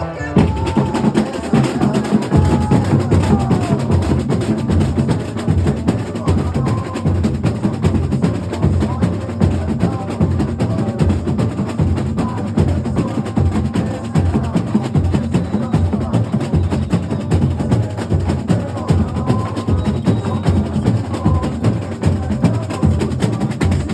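Carnival comparsa drum section (batería) playing loud, dense percussion together: deep bass drums under snares and sharp, wood-block-like clicks.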